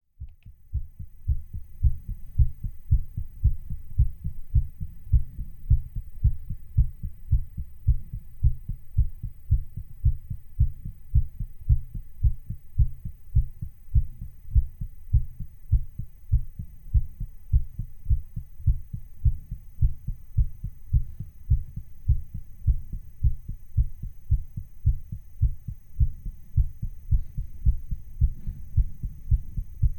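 A human heartbeat recorded close up and slightly sped up: a fast, steady, regular run of low thuds, like a racing heart.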